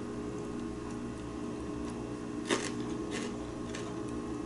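Someone eating pozole with a metal spoon from a ceramic bowl: a few soft clicks and eating noises, the clearest about halfway through, over a low steady hum.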